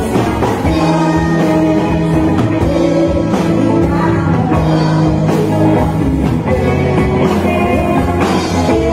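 Live band playing a rock song, loud and steady: singing over an Epiphone SG electric guitar, with a regular beat.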